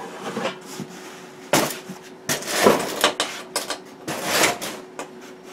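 Metal tools and parts being handled at a machine base, clattering and scraping in bursts: one about a second and a half in, a longer one around two and a half seconds, and another around four seconds. A steady hum runs underneath.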